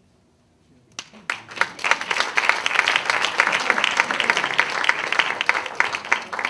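Theatre audience applauding, breaking out suddenly about a second in and going on as dense, steady clapping from many hands.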